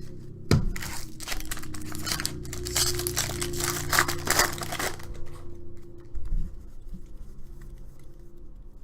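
Foil trading-card pack being torn open and its wrapper crinkled, a dense crackling for about the first five seconds that then thins to lighter handling noise, over a low steady hum.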